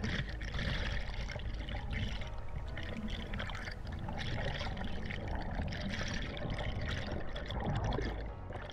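River water rushing and trickling around the camera, with background music over it.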